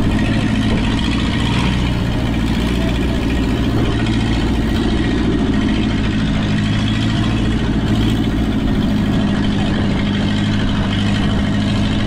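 Fishing bangka's diesel engine running steadily at a constant speed.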